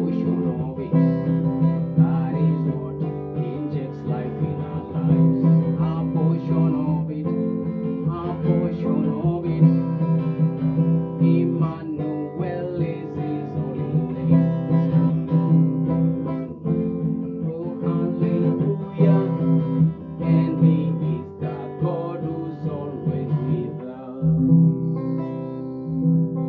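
Strummed acoustic guitar music: an instrumental passage of a worship song, with steady repeated chord strokes that ease into a held chord near the end.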